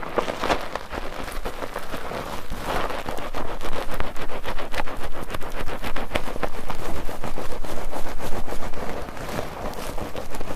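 Wet bar soap being worked into lather in a foaming net: rapid squelching and crackling of the foam, which grows denser and louder about four seconds in and eases near the end.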